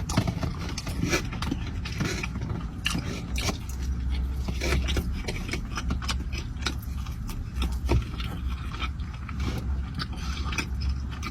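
Chewing and biting into a jelly-filled donut: many small, irregular mouth clicks and wet smacks over a steady low hum.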